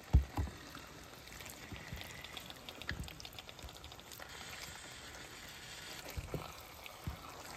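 Spaghetti and beef shanks in tomato sauce sizzling faintly in a skillet while a silicone spatula stirs them, with a few soft knocks of the spatula against the pan.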